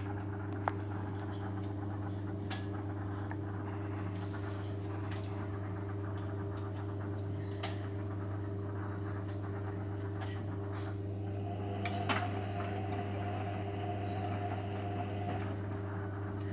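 Beko washing machine running its main wash: a steady motor hum under scattered light clinks and knocks from the turning drum, with a few clustered together about twelve seconds in.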